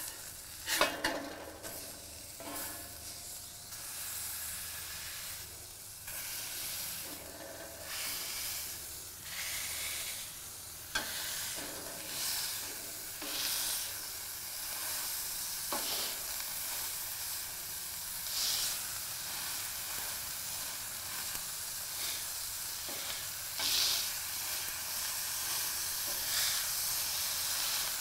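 80/20 ground beef sizzling on a hot cast-iron griddle as the patty is smashed flat with a steel spatula. Occasional scrapes and clacks of the spatula against the griddle, the sharpest about a second in.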